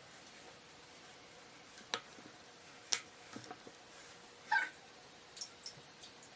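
A young Norwegian Forest cat meowing once, briefly, about four and a half seconds in, with two sharp clicks earlier over a steady low hiss.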